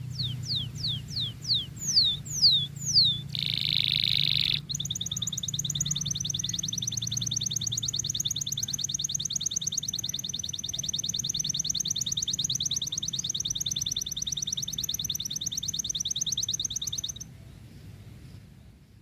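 Domestic canary singing: a run of quick falling whistled notes, a short harsh buzzy note, then a long fast trill that stops about two seconds before the end.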